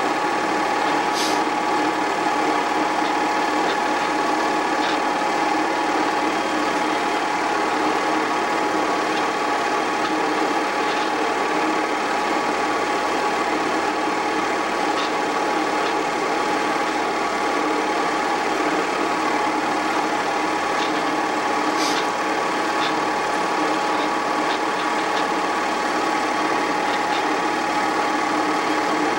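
8mm film projector running: a steady mechanical whirr of its motor and film transport, with a few faint clicks.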